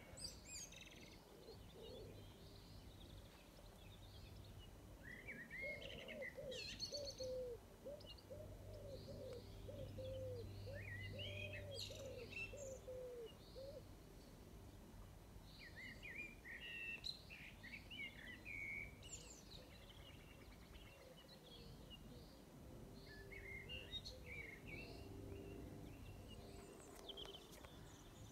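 Several birds singing and calling faintly, with short chirps scattered throughout and a run of lower repeated notes in the middle, over a faint low hum.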